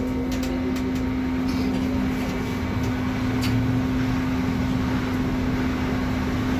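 Inside a trolleybus on its route: a steady electrical hum on one low pitch over even rumbling running noise.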